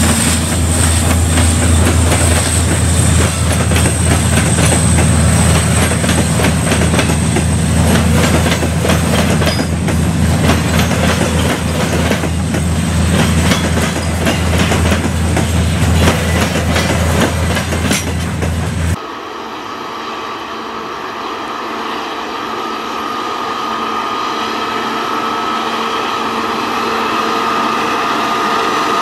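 Heavy freight train of 2TE116 twin-section diesel locomotives and loaded hopper wagons rolling past close by, wheels clattering over rail joints with a deep rumble. About two-thirds of the way in this cuts abruptly to a 2TE116U twin-section diesel locomotive under power, its engine running with a steady whine.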